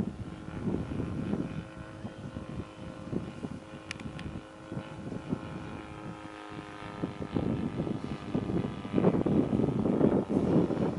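Saito FG 57 four-stroke petrol engine of a large radio-controlled RF-4 model running at a steady pitch for several seconds. Wind buffets the microphone at the start and again near the end.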